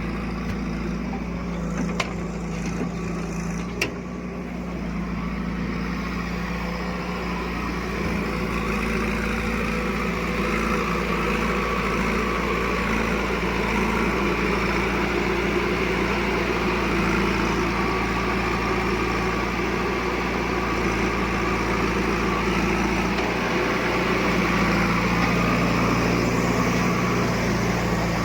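Heavy diesel engine running steadily, with two sharp knocks in the first few seconds; from about eight seconds in the engine grows louder and rougher, as if under load.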